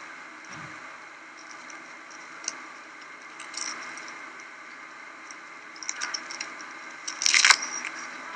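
Honey bees inside the nest: a steady hum from the colony, broken by brief high squeaks and clicks, with a louder burst of them near the end.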